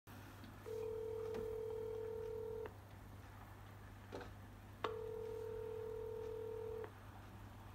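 Phone ringing tone heard while placing a call: two long steady beeps of about two seconds each, about four seconds apart, with a faint low hum underneath.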